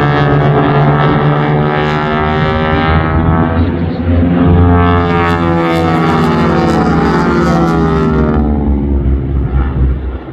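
Several North American T-6 Texans' Pratt & Whitney R-1340 radial engines droning loudly as the formation flies by, their pitch sliding as the planes pass. A harsher, brighter propeller edge comes in from about five to eight seconds in, and the sound fades near the end.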